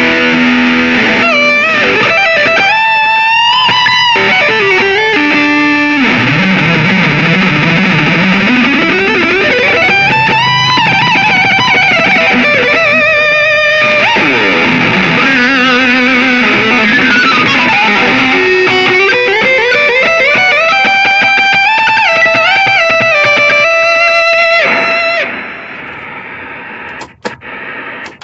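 Electric guitar played through a Line 6 POD HD300 multi-effects pedalboard preset: a sustained lead line with long slides up and down and quick stepped note runs. It stops near the end.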